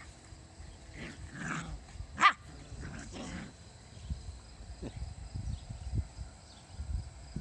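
Labradoodle dogs at play: one short, sharp bark a little over two seconds in, with softer dog vocalizations just before and after it.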